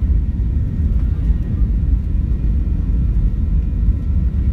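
Passenger airliner taking off, heard from inside the cabin: the engines make a loud, steady, deep rumble.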